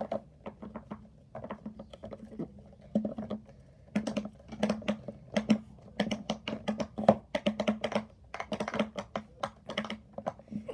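Silicone pop-it fidget toys being pressed: a rapid, irregular run of small pops, busier from about four seconds in.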